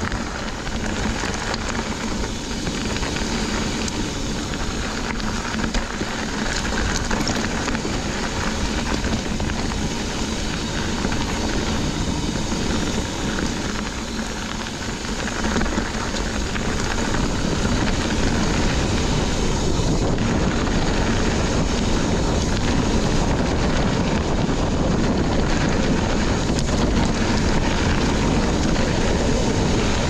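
Wind rushing over the microphone together with the rolling and rattling of a mountain bike ridden fast over a dirt trail: a steady rushing noise that grows louder a little past halfway.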